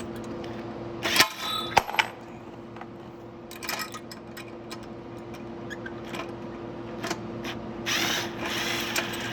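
Hand tools working the bolts on a dirt bike's body kit: sharp metal clinks a little after one second and near two seconds, a short rattle near four seconds and a longer clinking rattle near the end. A steady low hum runs underneath.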